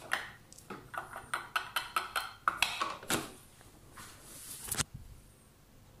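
Hand-operated food chopper working through boiled egg and bread: a quick run of plastic clacks and knocks, about four or five a second, then a louder clatter near the end.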